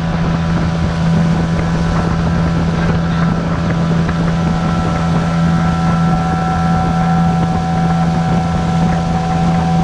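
Small boat's outboard motor running steadily under way, a constant low drone with a fainter steady higher whine, mixed with wind on the microphone and the rush of water along the aluminium hull.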